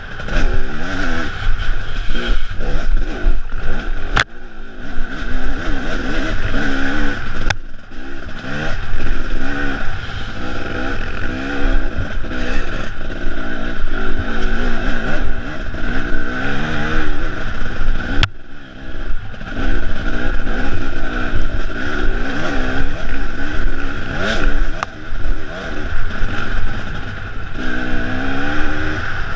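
Enduro motorcycle engine ridden hard along a rough dirt trail, revving up and down continuously as the throttle opens and closes, heard close from a camera mounted on the bike. A few sharp knocks cut in along the way.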